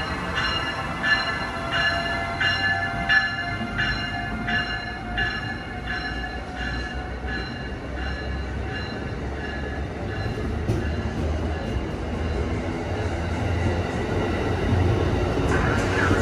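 Passenger train running, with a bell ringing in even strokes about one and a half times a second that fade away about seven seconds in, over the train's low rumble. A faint rising whine runs under the bell.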